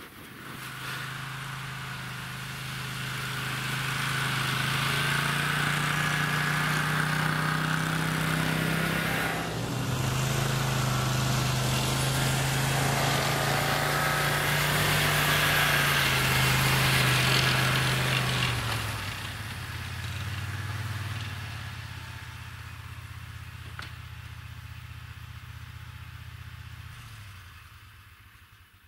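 Snowmobile engine running under throttle as it pulls away, its pitch rising and falling. It grows quieter after about two-thirds of the way through and dies away near the end.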